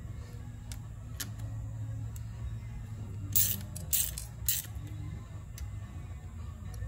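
Hand driver clicking and clinking against the stator screws of a Honda ATC250R two-stroke engine as they are tightened, with three sharper metal clinks about halfway through, over a steady low hum.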